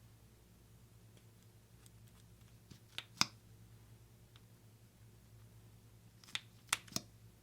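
A few short, sharp clicks from hands handling slime and makeup: two about three seconds in and three more near the end, over a faint low hum.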